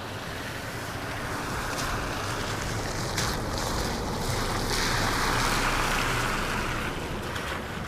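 An Arrma electric RC car driving through wet mud and water, giving a steady rushing, splashing noise that swells about halfway through. The wetting is enough that the driver fears the speed controller (ESC) got drowned.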